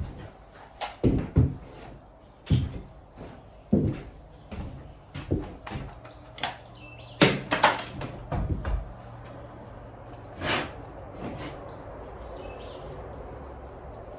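Irregular wooden knocks and thumps, about a dozen in the first nine seconds, as boards are handled and set down. A low steady hum sets in about halfway through.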